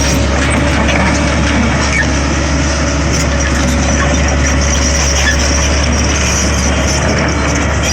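Volvo EC140 excavator's diesel engine running steadily, with a strong, even low drone. It is running on its newly fitted water pump and fan belt.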